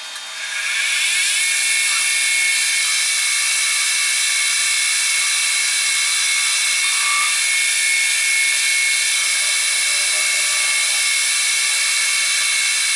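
Metal lathe starting up: the spindle spins up over about a second with a rising whine, then runs at steady speed with a high whine.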